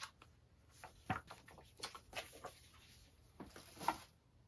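Soft paper handling: a few scattered rustles and light taps as a printed booklet's pages are leafed and the booklet is set aside.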